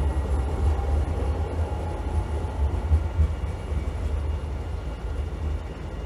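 A train rumbling in the underground station below: a low, steady rumble with a faint thin whine over it for the first couple of seconds.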